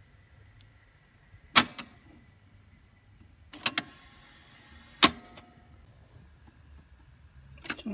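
Mechanical piano-key controls of a Toshiba Beta II V-7100 video cassette recorder clunking down one at a time: a double clunk about a second and a half in, another as rewind is engaged a couple of seconds later with the tape whirring for about a second, a single sharp clunk about five seconds in that stops it, and more key clunks near the end.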